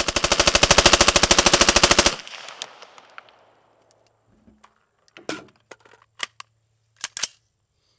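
Full-auto burst of about two seconds from a 300 Blackout AR-pattern rifle firing supersonic 150-grain rounds through a Walker Defense Nero 7.62 3D-printed muzzle brake. The shots come in a fast, even rapid-fire run and the echo fades out about a second after. A few sharp clicks and knocks follow later.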